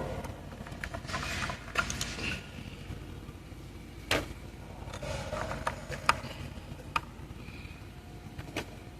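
Hand tools on a car engine: half a dozen separate sharp metallic clicks and knocks, with short scraping and rustling between them, over a steady low hum.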